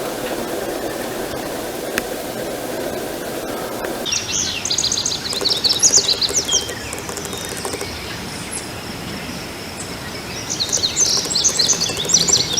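A steady low noise cuts off about four seconds in. It is followed by a woodcock's rapid high chirping: two runs of quick sweeping chirps, one after the cut and another near the end, typical of its display-flight twittering.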